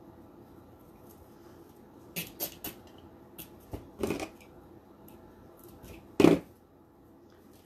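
Scratchy rustling of stiff poly burlap petals being pushed and adjusted on a wreath board, in several short bursts. The loudest burst comes about six seconds in.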